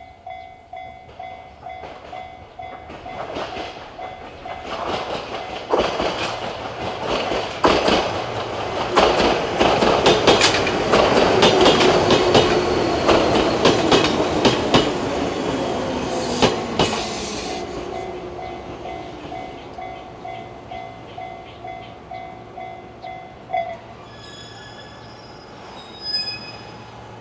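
A Japanese level-crossing alarm rings with the JR standard electronic tone, pulsing about twice a second, while a train passes with its wheels clattering over the rail joints. The train is loudest in the middle. The alarm cuts off near the end, once the crossing has cleared.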